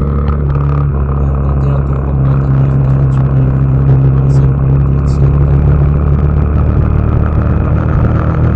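Motorcycle engine running at a steady cruise, with road and wind noise, heard from the rider's camera.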